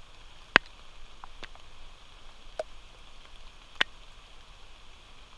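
Steady rain hiss with four sharp, separate clicks, the loudest about half a second in.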